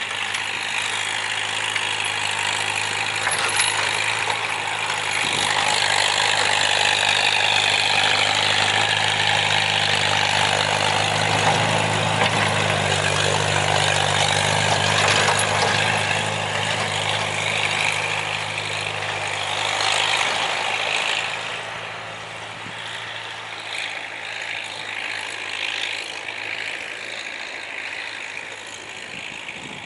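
Farmall 450 tractor's engine running steadily under load as it plows snow, with a broad hiss of the blade pushing snow over it. It grows louder as the tractor comes up and passes close, then fades about two thirds of the way through as it moves away.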